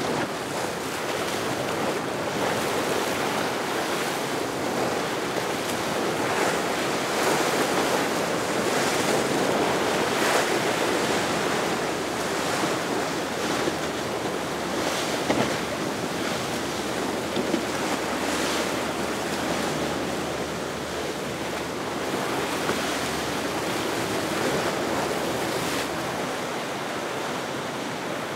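Rough inlet water rushing and splashing as a large motor yacht's hull crashes through the chop, with surges of spray every few seconds and wind buffeting the microphone.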